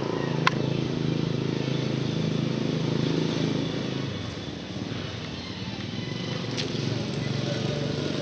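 Street sounds with a motor vehicle engine running, most likely the motorcycle passing on the street by the park, its hum fading about halfway through. There are two sharp clicks, one about half a second in and one near the end.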